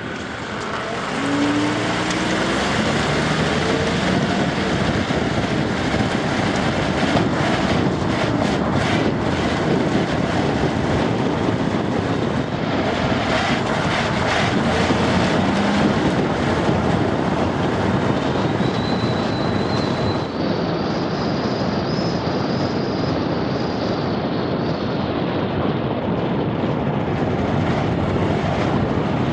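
1999 Acura RL driving on the road on new front struts: a steady, loud rush of road and wind noise, with a brief rising tone about a second in.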